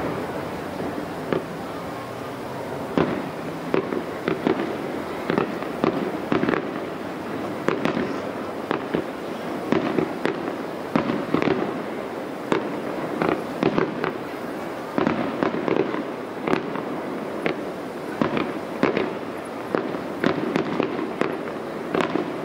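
Aerial fireworks shells bursting one after another: a few scattered bangs at first, then many in quick succession over a steady rumble from the display.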